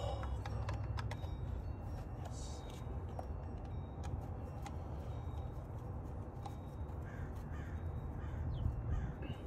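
Scattered light clicks of a hand tool loosening fasteners on the engine, over a steady low outdoor rumble, with a bird cawing.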